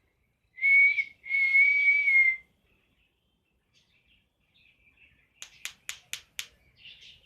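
Two steady whistled notes on one pitch, a short one and then a longer one, followed after a pause by a quick run of five sharp clicks near the end.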